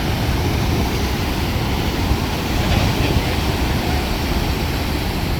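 Heavy surf: big ocean waves breaking in a loud, steady wash of noise with a deep rumble underneath.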